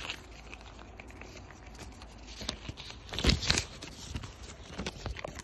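Footsteps crunching on dry leaves and rock along a trail, with a louder scuffle of crunches about three seconds in.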